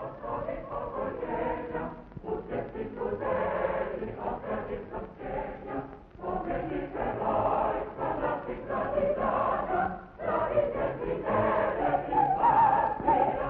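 Choral music: a choir singing in sustained phrases, with brief breaks about every four seconds.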